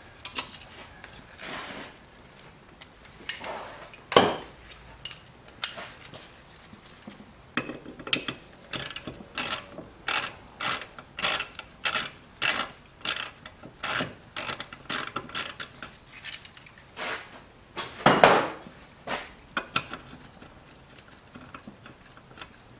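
Socket ratchet clicking in a quick, even run of strokes, about two to three a second, as the nut holding the brake master cylinder to the booster is turned off. Scattered knocks of tools on metal come before it, and there is one louder knock near the end.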